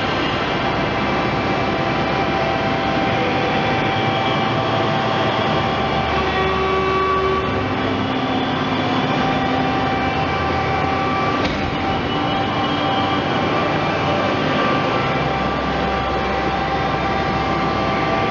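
Hydraulic pump and electric motor of a 1982 LVD 750-ton hydraulic press brake running steadily: an even mechanical drone with several whining tones, some of which come and go.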